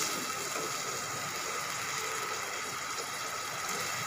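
Water and oil sizzling in a hot steel pan of potato and cauliflower pieces, a steady hiss, just after a little water has been added to cook the vegetables.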